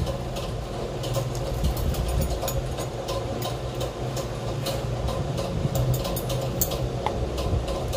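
A steady low mechanical hum, with scattered short clicks and crackles throughout.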